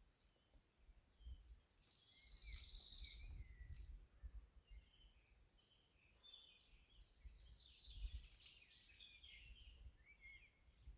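Faint songbird song: a short, dense, high trill about two seconds in, then a run of varied chirping notes in the second half.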